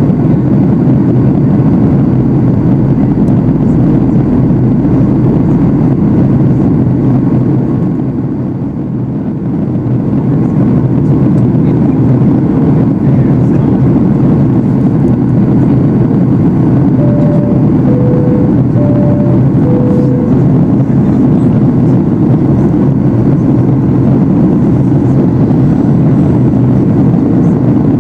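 Steady loud cabin noise of a Boeing 737-800 in flight, the drone of its CFM56-7 engines and airflow heard from a seat over the wing, easing briefly about nine seconds in. Past the middle, four short tones sound in a high-low-high-low pattern.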